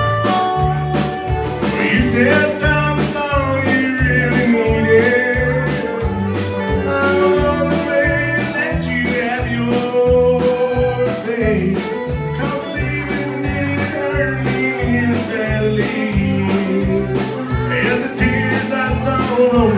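Live country band playing an instrumental passage between sung lines: fiddle and guitars carry a sliding melody over bass and drums keeping a steady beat.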